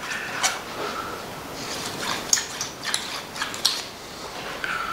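Knife blade stroked back and forth over a slate sharpening stone, a series of light scrapes with a few sharper clicks. This is the finishing stage on the slate, smoothing the edge and taking off small burrs.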